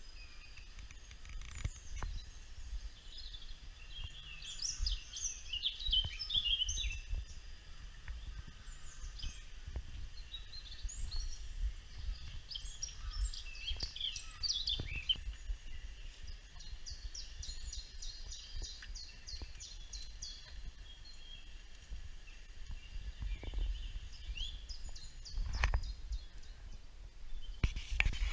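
Small birds chirping and trilling, played back from a nature video on a computer, in short scattered phrases with one run of quickly repeated notes past the middle, over a low rumble. A couple of soft knocks near the end.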